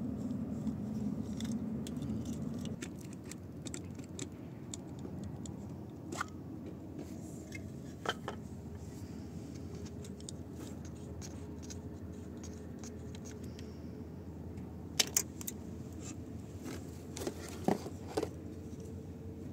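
Scattered small clicks and scrapes from the plastic housing, wires and terminal screws of a chilled-water temperature-sensor junction box being worked by hand and with a small screwdriver. A few sharper clicks come about a third of the way in and near the end, over a steady low hum.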